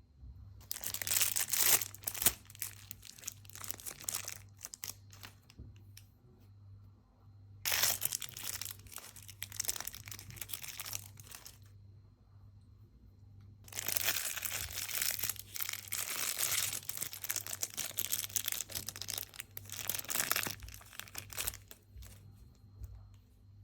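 Plastic packaging crinkling and tearing as squishy toys are unwrapped, in three spells of dense crackling: a short one near the start, another about a third of the way in, and a longer one through the middle and later part, with quiet gaps between them.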